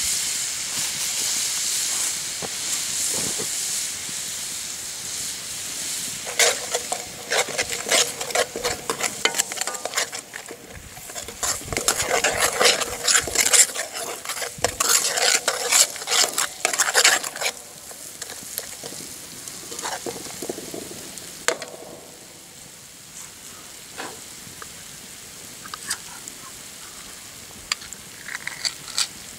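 Flour frying in hot deer-fat drippings in a steel skillet to make a roux for gravy: a steady hissing sizzle. From about six seconds in, a metal spoon stirs and scrapes the pan for about twelve seconds, then the sizzle carries on more quietly.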